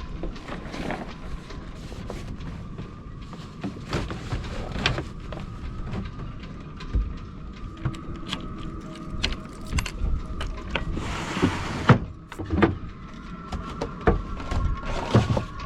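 Wind whistling through a small sailboat's rigging in a steady, slightly wavering high tone, with irregular knocks and clatters of rigging and gear and wind rumbling on the microphone. There is a brief louder gust about eleven seconds in.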